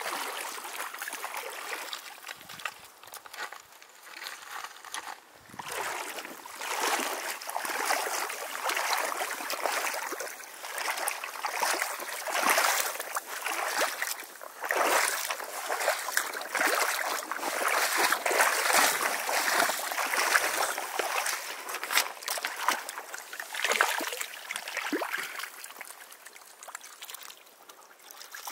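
Shallow mountain river running and gurgling over stones, with splashing that swells and falls unevenly.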